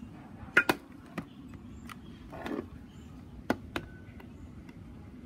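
A few sharp clicks and knocks, the loudest two close together about half a second in and another pair about three and a half seconds in, over a low steady background. This is handling noise from a handheld phone being moved.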